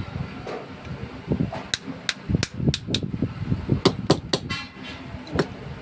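A dozen or so sharp, irregular taps and clicks of metal striking metal, from work on a car's ignition lock cylinder, with a brief ringing tone a little past the middle.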